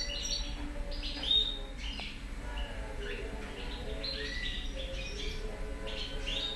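European goldfinch singing: a run of quick, high twittering chirps and short trills, with one louder note about a second and a half in.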